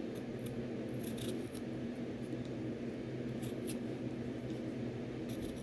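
Kitchen knife slicing through raw vegetables, giving a few short, crisp cuts over a steady low hum.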